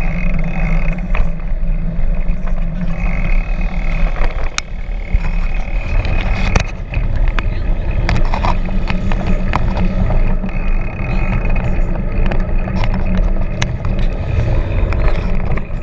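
Wind rushing over a chest-mounted action camera's microphone while a road bicycle rolls along an asphalt road, a steady low rumble with scattered clicks and rattles.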